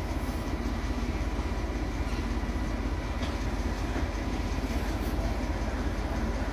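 Class 14 diesel-hydraulic locomotive's Paxman Ventura engine running steadily as it leaves, a deep, fast, even throb with a faint steady whine above it.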